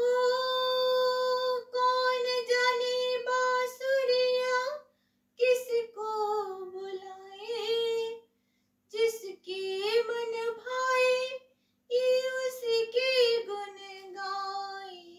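A woman singing a Hindi devotional bhajan unaccompanied, in four long phrases of held notes with short breath pauses between them.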